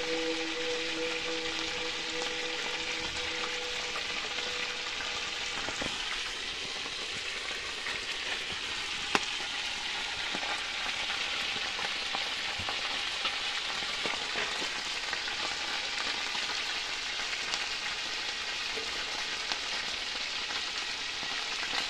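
Mojarras (tilapia) frying in hot oil in a pot over a wood fire: a steady sizzle, with scattered crackles and one sharp snap about nine seconds in.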